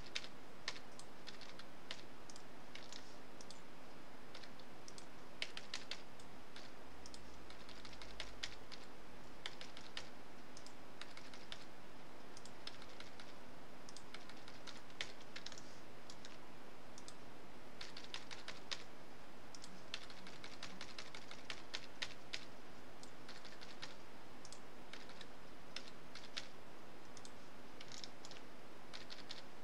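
Computer keyboard keys tapped in short, irregular clusters as shortcuts are entered, over a faint steady hum.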